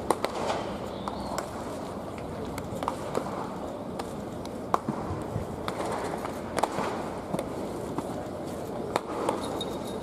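Baseball practice field ambience: scattered sharp knocks of bats and balls, irregularly, a few seconds apart, over a steady murmur of background noise.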